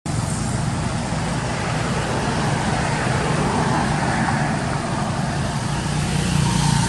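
Steady background vehicle noise: a continuous low engine hum under an even hiss of traffic.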